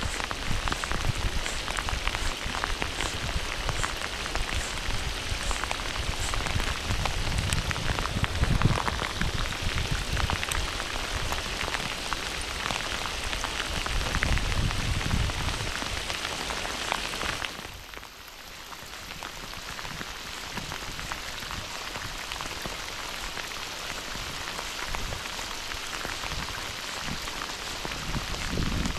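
Steady heavy monsoon rain, a dense hiss of countless separate drop hits, with a low rumble coming and going in the first half. About 17 seconds in it turns abruptly quieter and duller.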